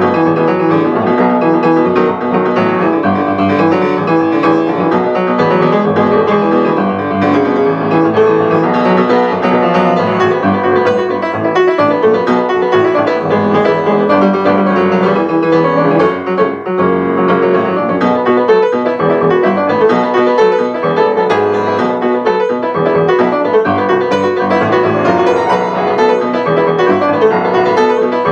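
Solo grand piano playing a dense, continuous passage of many quick notes, with a brief dip in loudness a little past halfway.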